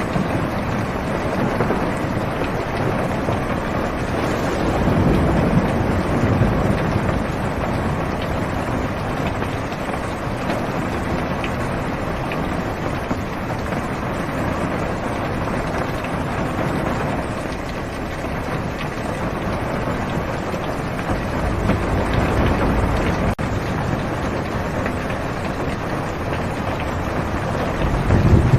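Steady heavy rain on a car's roof and windows, heard from inside the cabin. Low rumbles of thunder swell about five seconds in, again past the twenty-second mark, and near the end.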